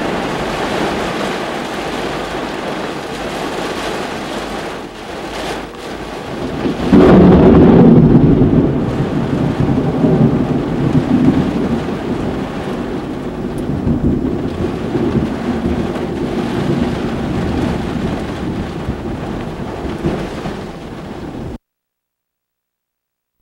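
Steady rain, then about seven seconds in a close lightning strike's thunder breaks loud and rumbles on, fading slowly over more than ten seconds before the sound cuts off abruptly.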